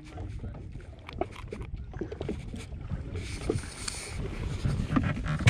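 Small waves lapping against the hull of a drifting Yamaha WaveRunner jet ski, with scattered knocks and clicks from handling a caught fish and a cooler. A brief hiss lasting about a second comes about three seconds in.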